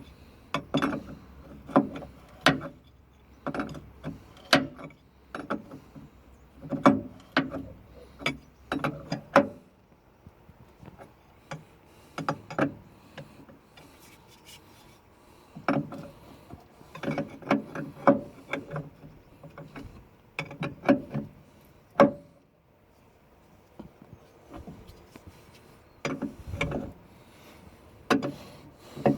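Spanners clinking and scraping on metal fittings as a solenoid valve is tightened into an excavator's hydraulic valve chest: irregular knocks and clicks, with a quieter pause a little past the middle.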